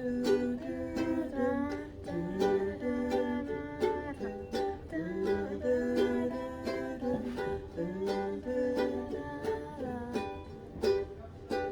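Strummed string instrument playing a song's introduction in a steady rhythm, with a held melody line over the strums.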